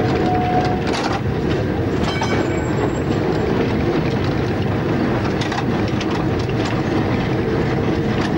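Interurban tramcar running along the line, heard from the driver's cab: a steady rumble of wheels on rails and traction motors, with scattered clicks from the track.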